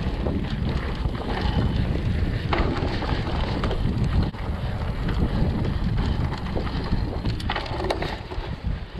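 Mountain bike descending a dirt trail at speed: wind buffeting the microphone over a steady rumble of tyres on dirt, with scattered knocks and rattles from the bike.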